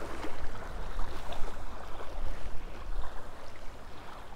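Wind buffeting the microphone, a steady low rumble, over small waves lapping at a gravel lakeshore.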